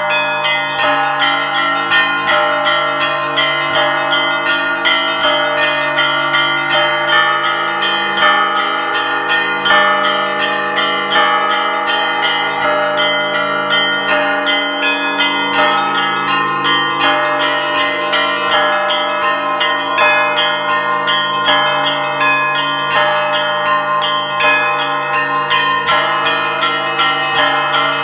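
Orthodox church bells pealing in the Russian zvon style: the small bells are struck in a rapid, continuous pattern over the sustained hum of the larger, deeper bells.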